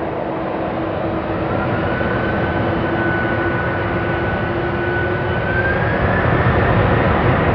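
Jet engines of a Boeing 747-400D taxiing: steady rumbling noise with a whine that climbs in pitch about two seconds in and again near six seconds, slowly getting louder as the engines are throttled up on the ground.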